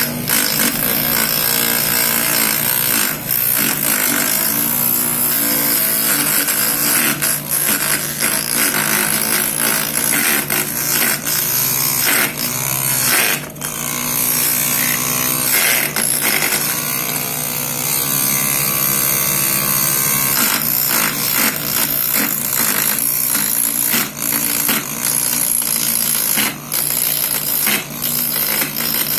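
Homemade mini lathe's 12-volt DC motor running steadily, spinning a piece of wood, with a constant low hum and irregular scraping clicks throughout.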